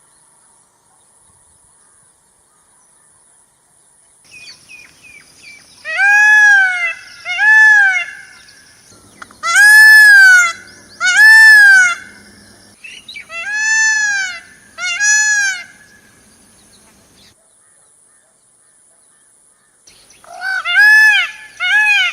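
A large bird giving loud honking calls in pairs, each call rising then falling in pitch. Four pairs come a few seconds apart, the first about six seconds in, with faint chirping just before it.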